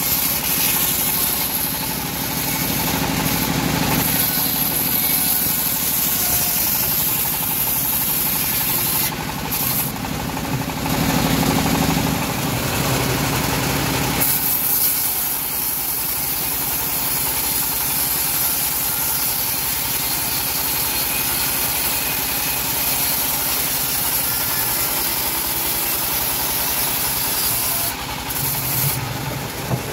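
Engine-driven homemade band sawmill running steadily while its blade cuts lengthwise through a teak log; the tone of the running shifts about twelve seconds in.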